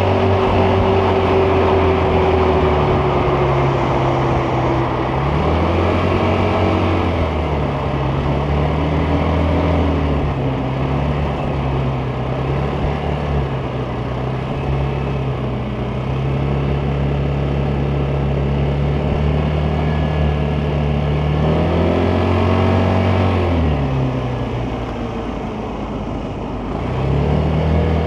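Vespa GTS 300 scooter's single-cylinder four-stroke engine under way, heard from the rider's seat: it picks up speed early on, then holds a steady cruising note for a long stretch. About three-quarters of the way through it drops back toward idle as the scooter slows, then revs up again near the end.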